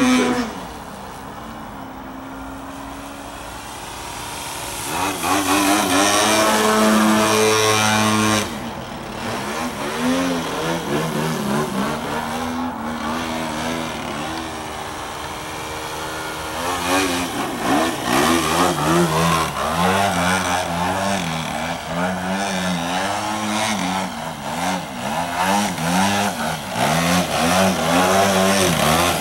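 VVRC 40cc twin-cylinder gas engine of a 78-inch Extra 300 RC aerobatic plane in flight, breathing through a 2-into-1 header and Pinnacle canister muffler and still breaking in. It is held at high throttle, cut back sharply about eight seconds in, then its pitch rises and falls over and over through the last part.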